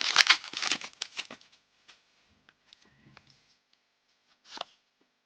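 Foil Pokémon TCG booster pack wrapper being torn open and crinkled, dense for the first second and a half. After that come a few soft card-handling ticks and one brief swish near the end.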